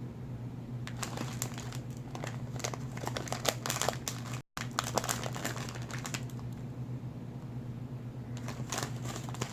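Candy packaging crinkling and rattling as jelly beans are picked out, in irregular clusters of small clicks and crackles that pause briefly in the middle and return near the end. A steady low hum runs underneath.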